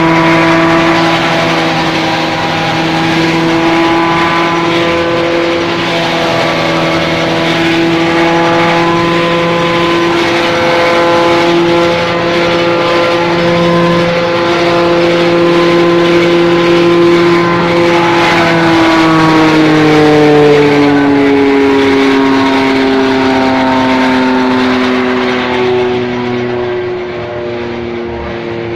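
Tractor engine powering a silage chopper (chaff cutter) that is cutting green fodder: a loud, steady, pitched running hum. About two-thirds of the way through, the pitch slides lower.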